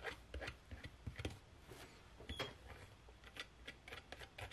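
Palette knife spreading and smoothing wet acrylic pouring paint over a canvas: faint, irregular small clicks and scrapes.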